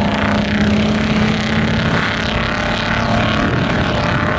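SUV engine running hard under load as it climbs a steep sand dune, its drone held at one steady pitch before easing off about three and a half seconds in.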